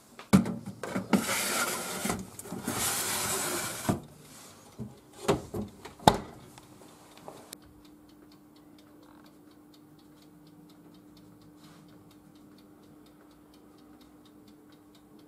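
Metal baking tray scraping as it is slid onto the oven rack, then a few sharp knocks around six seconds in as the oven door shuts. After that the electric oven hums steadily, with faint even ticking.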